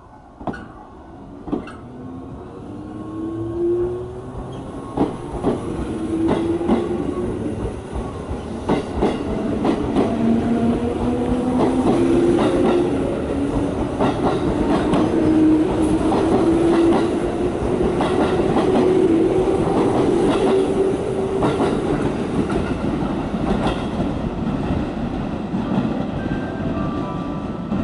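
JR West 221 series eight-car electric train pulling away: its traction motors whine in several rising tones as it gathers speed, while the wheels clack over rail joints as the cars roll past.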